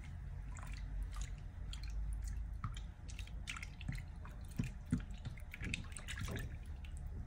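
A hand splashing and swishing through a glass bowl of watery pink makeup mixture, with small irregular splashes and drips and two sharper splats a little past halfway.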